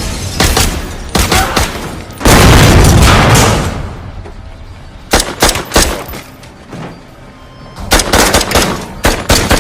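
Film battle sound effects: bursts of automatic gunfire, broken about two seconds in by a heavy explosion lasting over a second, then more volleys of rapid shots near the middle and the end, over a music score.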